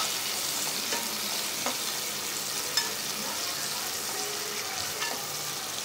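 Sliced onions sizzling steadily in hot oil in a kadai as they are sautéed, with a few light clicks of a slotted spoon stirring them.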